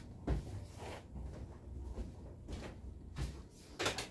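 A few irregular knocks and clunks with rustling, as objects are handled and moved about, over a low steady hum. The loudest clunk comes near the end.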